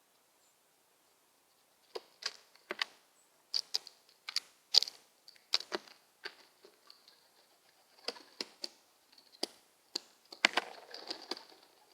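A crow's beak picking up peanuts from a hard surface: sharp, irregular clicks and taps starting about two seconds in, with a quick scrabbling flurry near the end.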